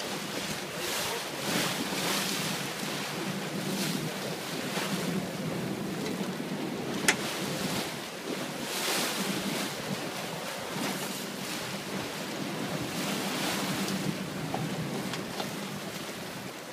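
Wind buffeting the microphone and sea water rushing and splashing in surges around the boat's stern, over a steady low hum from the boat's engine. A single sharp click about seven seconds in.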